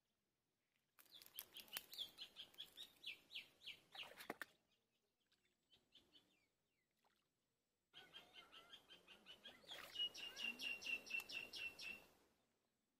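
A bird calling in two bursts of rapid, repeated high chirps, about five a second, over a faint hiss. The first burst lasts about three seconds; the second starts a few seconds later and lasts about four.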